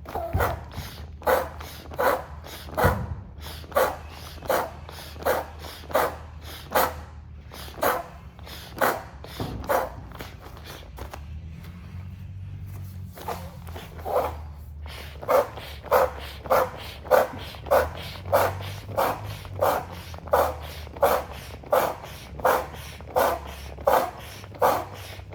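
Built-in foot pump of an inflatable camping sleeping pad being stepped on over and over, each press giving a short puff of air, at about one to one and a half presses a second. The pumping stops for a few seconds about ten seconds in, then resumes a little faster.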